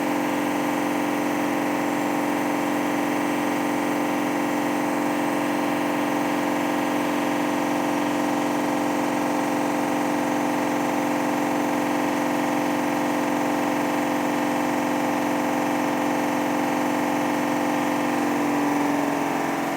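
Candy washer-dryer on its spin cycle, giving off a loud, steady, pitched machine hum with many overtones that starts to fall in pitch near the end. The owner takes the noise for a fault; the manufacturer calls it normal for Candy washing machines.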